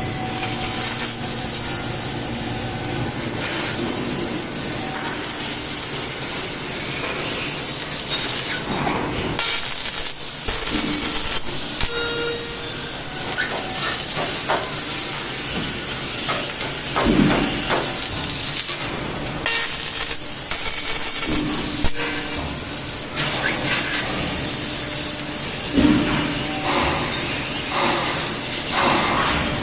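12 kW CNC fiber laser cutting 20 mm plate: a steady hiss from the assist-gas jet and the cut, with short breaks in the high hiss about nine and nineteen seconds in.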